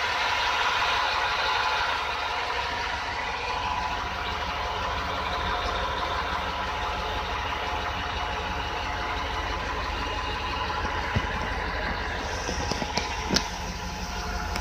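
Truck engine idling steadily, heard up close under the vehicle at its new fully welded muffler and tailpipe, with a quiet, even exhaust note. A few sharp clicks come near the end.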